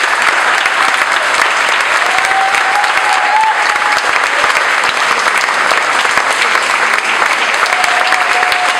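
Sustained applause from a crowd, many hands clapping steadily.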